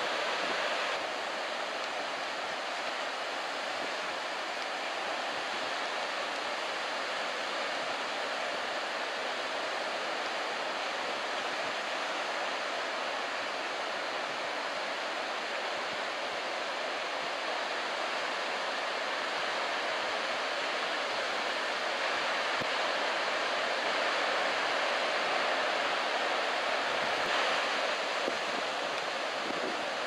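Breaking surf on a sandy beach: a steady, even hiss of whitewater with no single crash standing out, growing slightly louder in the latter half.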